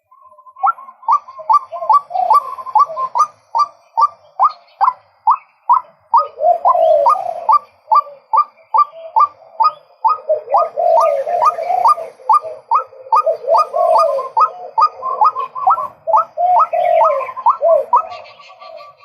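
Male white-breasted waterhen calling: a long, even series of short, sharp notes, about two to three a second, with lower, wavering calls overlapping them from about six seconds in.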